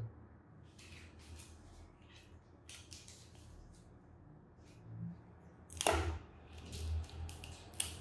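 Blue-and-gold macaw making scattered dry clicks and crackles on its wooden perch, in small clusters, with one louder crack about six seconds in.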